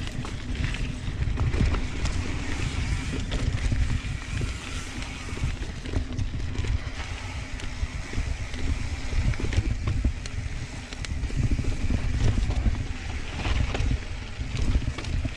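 Mountain bike riding down a dirt trail: a steady, uneven rumble of wind on the camera microphone and tyres on dirt, with scattered clicks and rattles from the bike.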